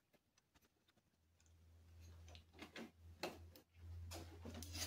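Faint small metallic clicks and taps of hands handling a bicycle front derailleur on the frame. A low steady hum comes in about a second in.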